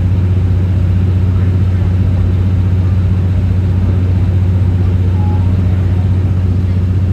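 Steady low diesel hum and running rumble heard inside a Japanese 12-series passenger coach as the diesel-hauled train moves slowly along.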